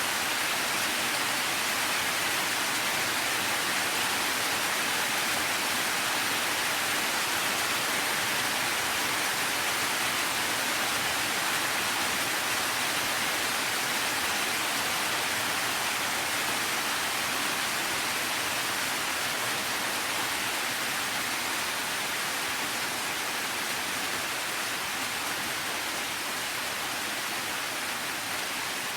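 Steady rain, heard as an even, unbroken hiss with no single drops, thunder or gusts standing out.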